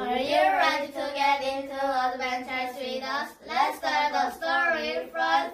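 A small group of children singing a song together, in held notes that waver in pitch.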